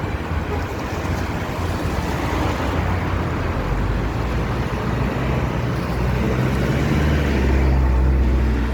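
Road traffic going by, with the low rumble of a vehicle engine swelling louder and closer toward the end.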